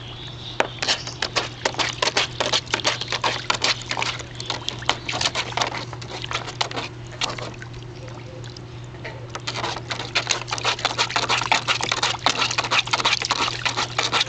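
Portuguese Podengo Medio puppy wading in shallow water in a plastic wading pool: quick, irregular splashes and drips of water, thinning out for a few seconds midway and picking up again.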